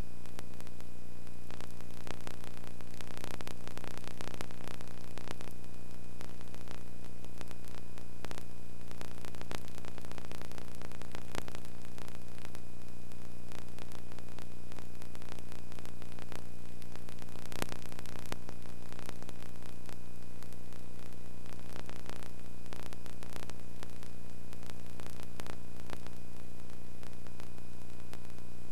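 Steady electrical hum with an even hiss and scattered faint clicks, unchanging throughout: the noise floor of an old transfer, with no game sound in it.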